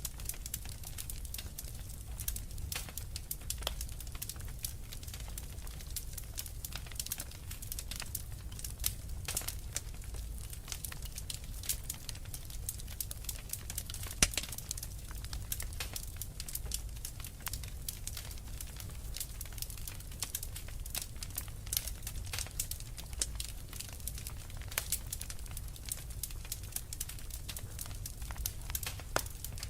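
Fireplace fire crackling: dense, irregular pops and snaps over a low steady rumble, with one sharper, louder pop about halfway through.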